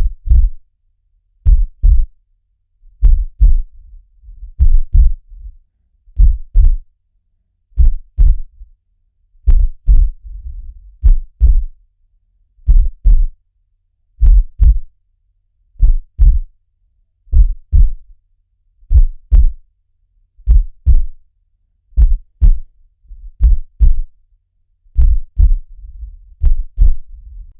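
Heartbeat sound effect, looped: slow, even double thumps (lub-dub) low in pitch, one pair about every second and a half.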